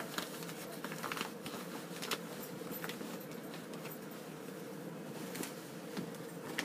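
Padded fabric pieces being handled on a table: soft rustling with a few brief light clicks and rustles, mostly in the first three seconds, over a steady faint hum.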